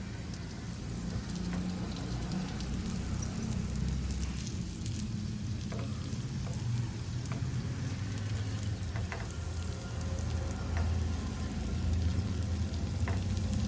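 Mango-pulp dough discs frying in butter in a pan, a steady sizzle, with a few light clicks of a utensil as they are turned. A steady low hum sits underneath.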